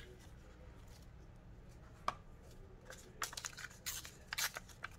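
Collage paper being handled: a single faint tick about two seconds in, then a quick series of short paper rustles over the last two seconds.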